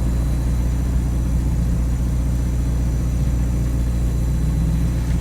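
Volkswagen Gol's engine idling steadily, a low even rumble heard from inside the cabin.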